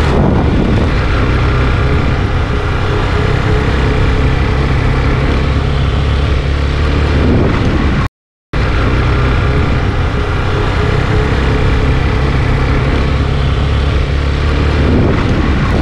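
A Yamaha motorcycle's engine runs at a steady cruising pitch while the bike is ridden, under steady wind and road rush. The sound cuts out completely for about half a second, a little after eight seconds in.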